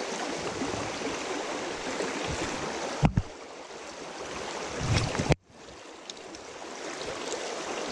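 River water rushing in a steady hiss, with a brief low thump about three seconds in. Just past halfway the sound cuts out for an instant and comes back quieter.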